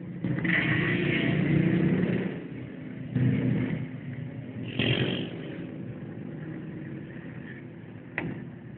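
Small motorcycles' engines revving and passing close around a slow-moving car, loudest in a swell early on and in shorter swells a few seconds later. A single sharp click comes near the end.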